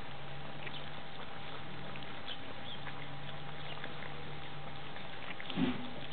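Weimaraner puppies eating from one bowl together, a steady patter of many small chewing and lapping clicks. One brief louder noise comes about five and a half seconds in, over a steady low hum.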